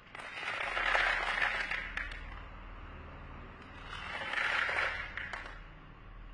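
Dried corn kernels poured from a small container into a plastic tub, rattling in two bursts about two seconds each, the second starting a little under four seconds in.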